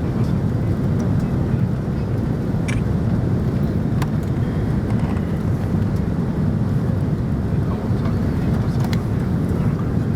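Steady low rumble of an Airbus A330-300 airliner, holding an even level, with a few faint clicks.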